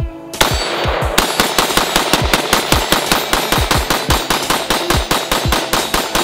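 Beretta ARX 100 5.56 mm rifle firing a rapid, continuous string of shots, emptying a magazine as fast as the trigger can be pulled. The firing starts about half a second in.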